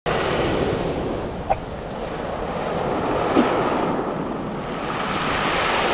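Waves breaking and washing up a pebble beach, a steady surf noise that swells and ebbs, with wind buffeting the microphone.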